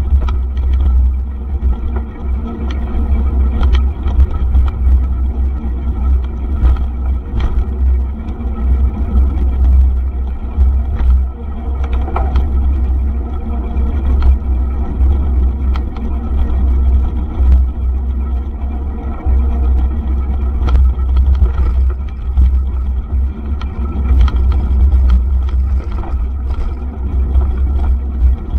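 Mountain bike ridden fast over a bumpy dirt forest track, heard from a camera on the rider or bike: a steady low rumble of wind on the microphone and tyres on the ground, with frequent sharp clicks and rattles from the bike and mount jolting over the surface.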